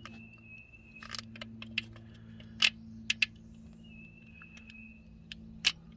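Scattered sharp metallic clicks and clinks of a hand tool and a small bolt being handled in an engine bay, about half a dozen in all, over a steady low hum. A faint thin high tone sounds briefly twice.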